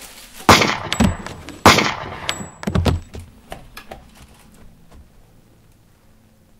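Handgun firing: about five loud shots in quick succession over roughly two and a half seconds, each with a short ringing tail.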